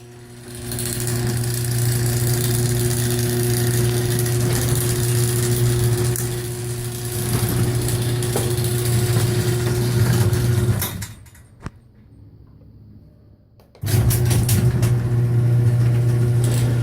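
Chain-drive garage door opener running, a steady motor hum with metallic scraping and rattling from a metal piece sliding against the chain. The motor stops about eleven seconds in and, after a pause of about three seconds, starts again abruptly.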